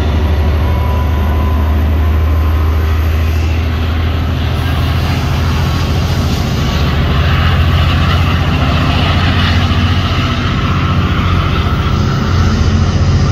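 GO Transit F59PH diesel locomotive running close by with a steady, loud low engine drone. A rushing hiss builds over it from about six seconds in.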